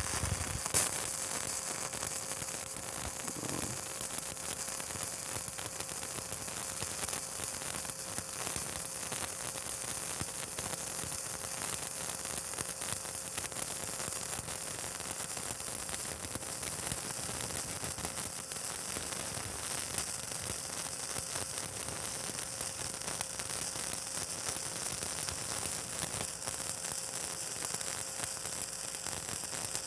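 Stick (shielded metal arc) welding with a 7018 electrode on a vertical-up fill pass on steel plate. The arc strikes at the start, peaks loudly about a second in, then burns with a steady crackling hiss.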